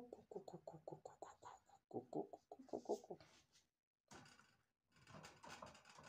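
A person's voice making a fast run of short repeated syllables, about eight a second and fading, then a second shorter run about two seconds in; faint overall, with two brief dropouts to silence after the middle.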